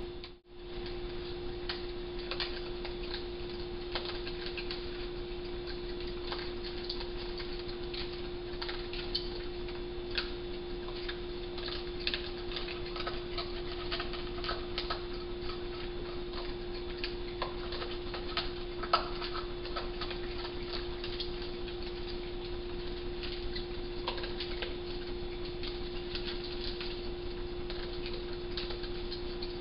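Raccoons eating dry cat food from bowls: scattered crunching clicks and light knocks of bowls, with one sharper knock about two-thirds of the way through, over a steady hum.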